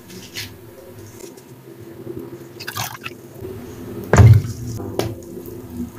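Hands poking and pressing a floating skin of dyed hydrophobic chalk powder on water, making soft wet squishes and crackles, with one louder wet squish about four seconds in.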